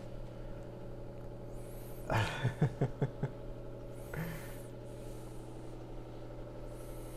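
Steady electric hum of a countertop convection oven running while it bakes. About two seconds in comes a short pulsing burst of a man's voice, the loudest sound, and a briefer one about two seconds later.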